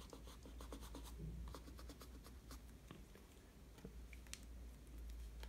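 Faint, irregular scratching and rustling of a putty rubber being rubbed over pencil lines on sketchbook paper, to erase them.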